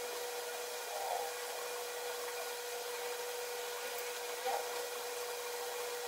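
Silicone spatula stirring and pressing buttered graham cracker crumbs against a ceramic bowl: soft scraping and rubbing, a little louder about a second in and again around four and a half seconds in, over a steady hiss and a faint constant hum.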